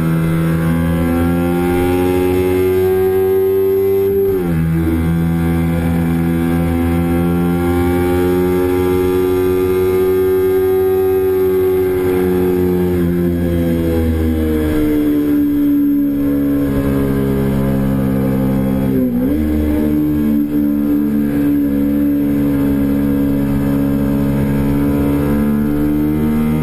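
2008 Kawasaki Ninja 250R's parallel-twin engine running hard at high revs, heard on board with wind rush. The pitch climbs slowly, eases down between about 12 and 15 seconds in, and dips sharply twice, about 4 and 19 seconds in, at gear changes.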